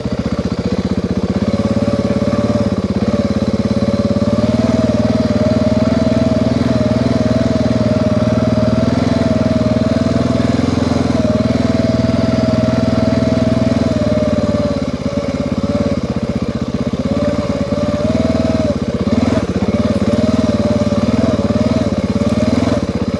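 Dual-sport motorcycle engine running steadily as the bike rides up a road. It eases off briefly about two-thirds of the way through, then picks up again.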